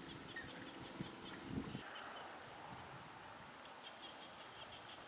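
Insects in the fields: a steady high-pitched drone with runs of quick chirping, and a couple of soft thumps in the first two seconds.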